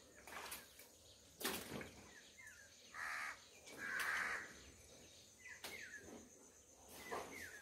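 Crows cawing, two harsh calls about three and four seconds in, among several shorter chirps. A few sharp knocks also sound, the loudest about a second and a half in.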